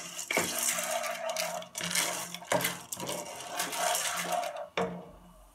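Dry popcorn kernels stirred in hot oil in a nonstick frying pan with a wooden spoon: a steady scraping rattle of kernels against the pan, roasting before they start to pop. The stirring stops near the end.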